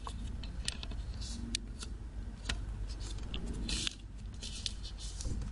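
Origami paper rustling and crinkling as it is folded into a triangle and the crease is pressed flat with the fingers, with scattered short crisp ticks and a few brief scrapes.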